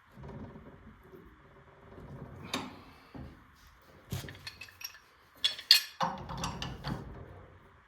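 Metal tools and parts clinking and clattering in a string of sharp knocks, busiest and loudest from about five and a half to seven seconds in.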